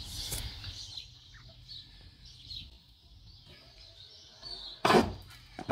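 Birds chirping faintly in the background, with one sharp loud knock about five seconds in and a smaller one just after.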